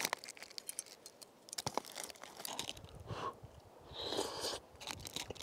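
Faint crinkling of a rehydrated freeze-dried meal pouch being opened and eaten from with a spoon, with scattered small clicks and rustles and some chewing.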